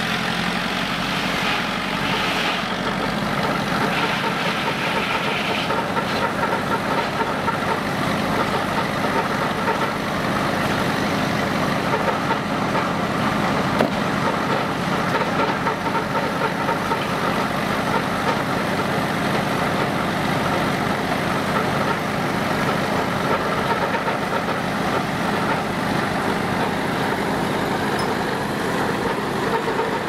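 Engine powering a vintage sawmill, running steadily.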